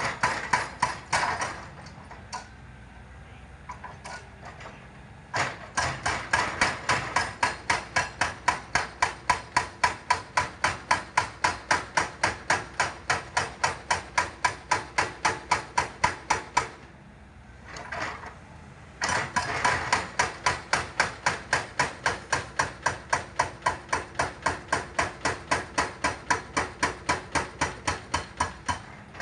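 Hydraulic breaker on a Volvo excavator hammering a rock boulder: rapid, even blows at about four to five a second. A short burst opens, then two long runs of blows with a pause of a couple of seconds between them.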